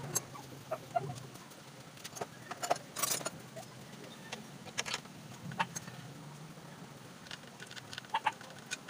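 Irregular light metallic clicks and clinks of hand tools and parts being handled while a small piston air compressor is taken apart, with a short cluster of knocks about three seconds in.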